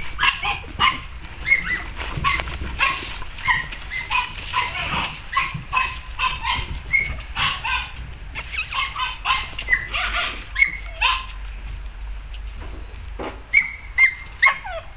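Small dog giving many short, high yips and whimpers in quick succession, easing off briefly about twelve seconds in.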